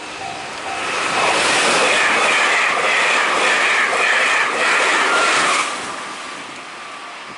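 A train passing close by: loud for about five seconds, with a regular clatter, then fading away near the end.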